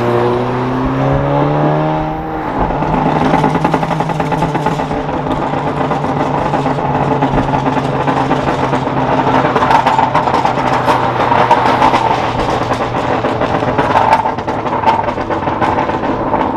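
2017 Honda Civic Si's 1.5-litre turbocharged four-cylinder, running a Phearable stage 1.5 tune through a catless downpipe, heard from inside the cabin. The engine revs up over the first two seconds, then runs on steadily under a long spell of crackling pops and spits from the exhaust.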